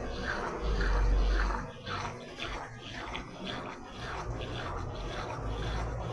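Brastemp washing machine running its spin cycle. A deep rumble swells about a second in and again near the end, with a swishing that repeats about three times a second as the drum turns.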